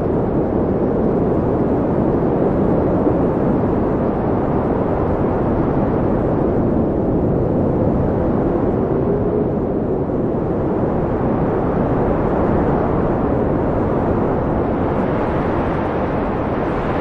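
Wind blowing steadily as a low, continuous rush, with a faint whistle about halfway through and a gust that grows brighter near the end.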